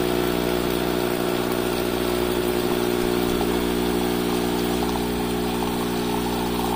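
Gaggia Classic Pro's vibratory pump buzzing steadily while hot water runs out of the open steam wand into a glass measuring cup: the steam-wand method of pre-infusion. The splash of water grows a little louder near the end.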